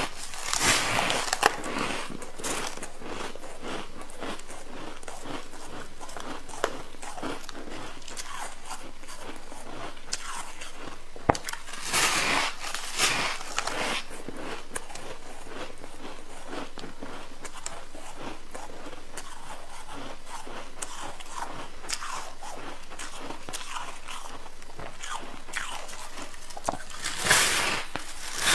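A person biting and crunching a big slab of fluffy white frost ice, with chewing between bites. Clusters of loud crunches come about a second in, around twelve seconds in and near the end, with smaller crackles between them.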